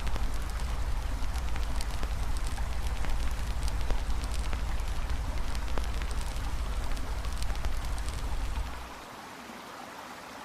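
Campfire crackling with scattered sharp pops over a steady rushing hiss of river water, with a deep low rumble underneath that drops out about nine seconds in.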